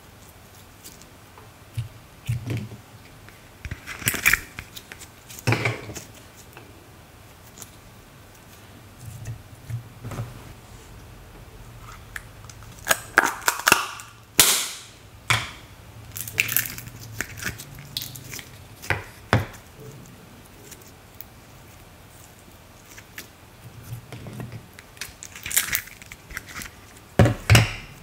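Slime being stretched and squeezed by hand, giving sporadic sticky clicks and pops with quiet gaps between. About halfway through comes a quick run of sharper clicks as a small plastic snap-lid container is opened.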